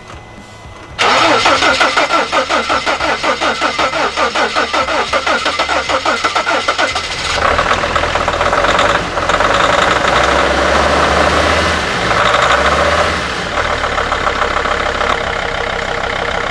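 Sprinter 2.7 five-cylinder diesel being started after sitting for about three months: the starter cranks it in an even pulsing, about four beats a second, for roughly six seconds before it catches and runs, its speed swelling twice. Near the end an uneven pulsing returns.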